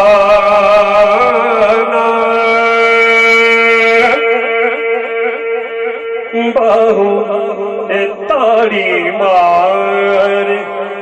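Devotional naat recitation: a man's voice singing long, wavering held notes over a steady low drone, the melody shifting and sliding more in the second half.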